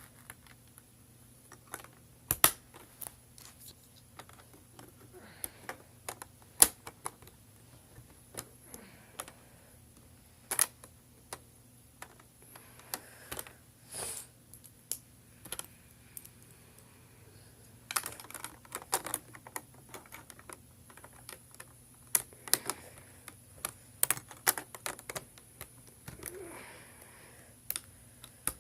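Snap Circuits parts being handled and snapped together on the plastic base grid: scattered sharp clicks and clacks at irregular intervals, busier about two-thirds of the way through.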